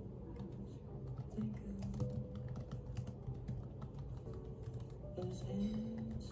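Fingers typing on a laptop keyboard: a rapid, uneven run of light key clicks, over background music with held low notes.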